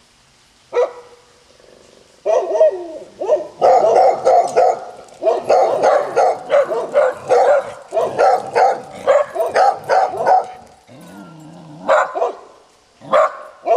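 Three dogs barking territorially at a passerby: one bark about a second in, then a long run of rapid, overlapping barks, then a few single barks near the end.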